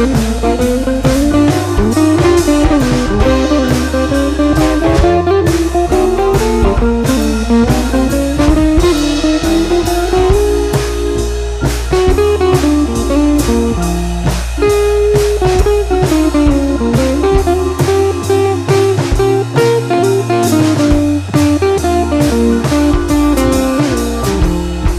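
Background music: a blues-style tune led by guitar, with a drum kit keeping a steady beat.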